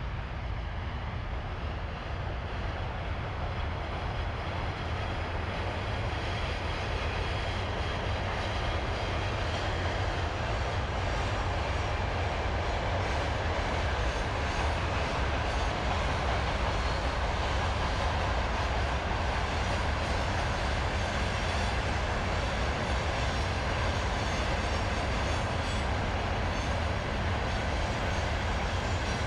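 Freight train hauled by 3ES4K and 2ES4K electric locomotives passing: a steady rumble of wheels and wagons on the rails, growing louder over the first dozen seconds or so.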